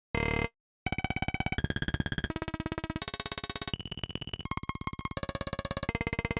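Synthesizer sounds: a short tone, a brief silence, then a fast-pulsing synth tone that steps through a series of different pitches every half second or so.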